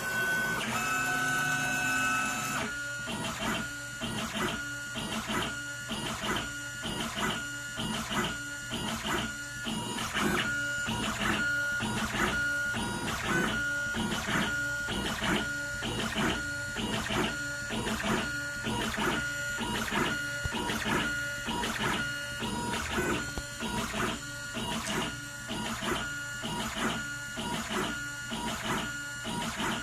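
Stepper motors of a DIY pen plotter CNC running, with a steady high whine and short whirring moves repeating about once or twice a second as the machine draws.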